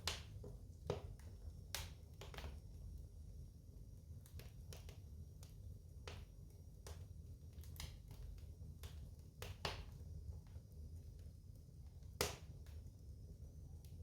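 Wood fire burning in a fireplace: irregular crackles and pops over a low steady rumble of the flames, with one louder pop about twelve seconds in.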